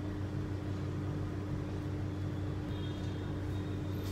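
Steady low hum with a faint constant tone over an even background hiss, unchanging throughout.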